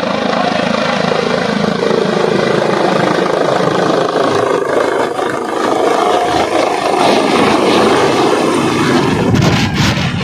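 Helicopter running close by, its rotor and engine loud and steady.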